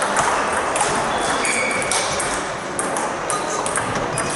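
Table tennis balls clicking off bats and tables, many irregular sharp clicks from the rally at hand and others going on at nearby tables.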